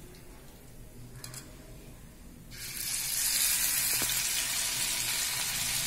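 Hot oil in a frying pan, faint at first; about two and a half seconds in, a masala-coated pomfret piece goes into the oil and it starts sizzling steadily.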